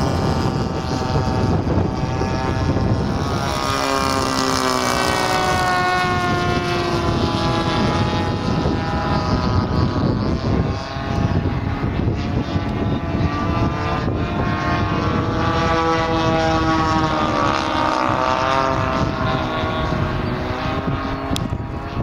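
Single-cylinder two-stroke petrol engines of two large-scale RC warbird models flying together, a Hurricane with a DLE 20cc and a Spitfire with a DLE 35cc, each turning a propeller. The drone rises and falls in pitch as the models pass and change throttle.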